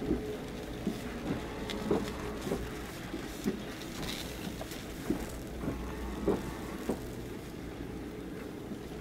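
Steady low machinery hum from moored purse-seine fishing boats, with irregular light taps and knocks about once or twice a second.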